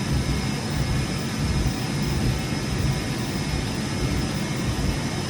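Mikron VCP/UCP 710 CNC machining centre running: a steady machine hum with a low rumble and a faint, constant high whine.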